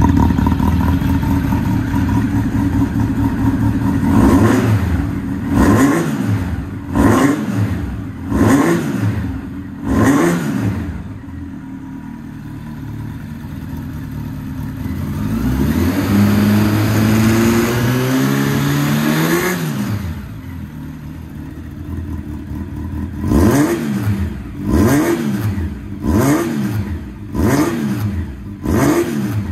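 Honda CB1300 Super Four inline-four engine running through a Moriwaki titanium full exhaust, idling and blipped on the throttle. Five quick, sharp revs come in the first ten seconds. About halfway through, a slower rev climbs for a few seconds and drops back. Five more quick blips come near the end.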